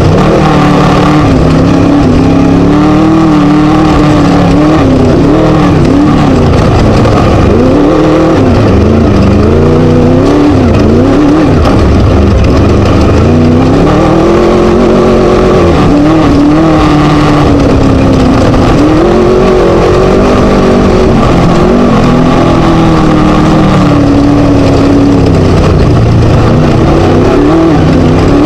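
Scat engine of a Chenowth DR2 Class 1 desert race buggy running hard at race pace, its pitch climbing and dropping over and over as the throttle is worked, over constant loud noise.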